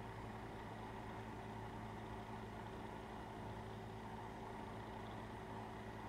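A steady low hum with a faint hiss, unchanging in pitch and level.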